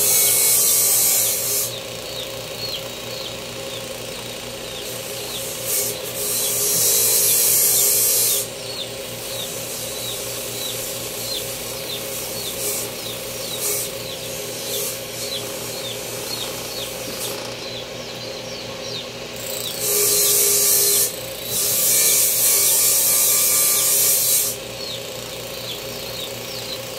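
A power tool running steadily, with several loud stretches of rasping, abrasive noise as it bites into the work: one at the start, one about six seconds in, and a longer one near the end.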